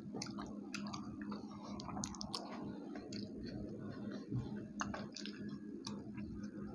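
Close-up chewing and mouth smacking of people eating fried puri dipped in haleem, with scattered small wet clicks, over a faint steady hum.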